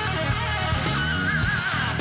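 Rock music with electric guitar: a lead line with a bent, wavering note about a second in over bass and a steady beat.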